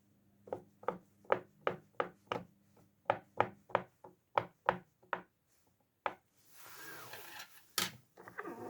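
Silicone pop-it fidget toy bubbles being pushed through one after another: a run of sharp pops, about two or three a second, for the first five seconds. After a short pause comes a rustling scrape, one loud pop, and more rustling near the end.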